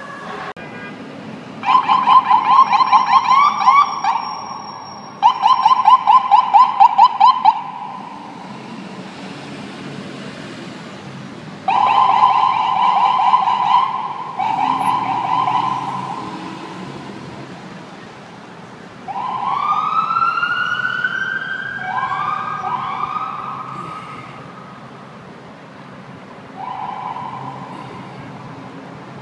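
Emergency vehicle electronic sirens sounding in short bursts over city traffic. The loudest is a fast pulsing warble, heard twice in the first seconds. Later come steadier tones and several rising whoops.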